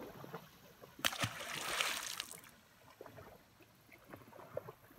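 A splash about a second in, with a short rush of water after it, as a longnose gar is let go over the side of a boat into the river. Faint small knocks follow.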